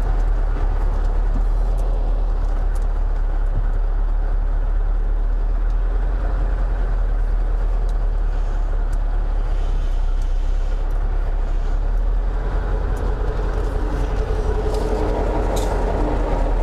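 Scania 143M truck's V8 diesel engine running with a steady low drone.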